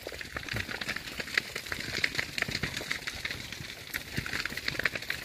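Burning dry grass and brush crackling: a dense run of irregular sharp clicks and pops.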